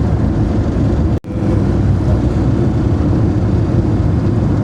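Daewoo Matiz driving at highway speed while overtaking lorries: a steady rumble of engine and road noise. The sound drops out for an instant about a second in.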